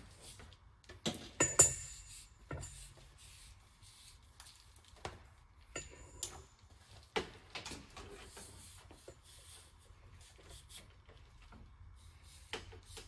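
Insulated electrical wires being handled and untangled: scattered rustling and light taps, with a sharper knock about one and a half seconds in.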